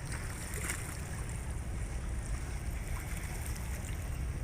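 Seaside ambience: wind buffeting the microphone in a steady low rumble, over a faint hiss of water.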